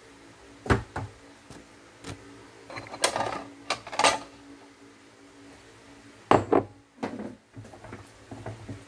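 Kitchenware clattering: a wooden spoon knocking against a stainless steel saucepan during stirring, and a bowl set down on the countertop. The knocks come irregularly, a few sharp ones at a time, over a faint steady hum.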